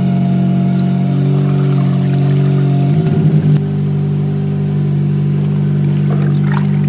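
Forklift engine running steadily with a low hum while hoisting an engine block over an acid tank; the pitch shifts and wavers briefly about three seconds in.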